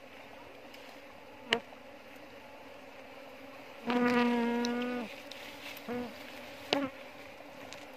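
A swarm of Asian hill honey bees (Apis cerana indica) humming steadily around a wooden hive box. Single bees fly close by with a loud, even-pitched buzz: the longest lasts about a second, from about four seconds in, and two shorter ones follow near the end. There is also one sharp click about a second and a half in.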